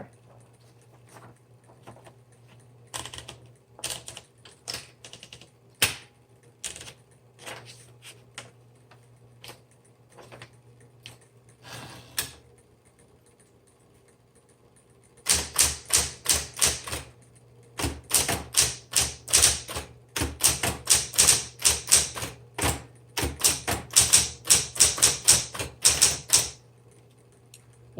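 Smith Corona Electra 110 electric typewriter with its motor humming steadily. Scattered single key strikes come over the first dozen seconds, then after a short pause a fast, continuous run of typing lasts about eleven seconds.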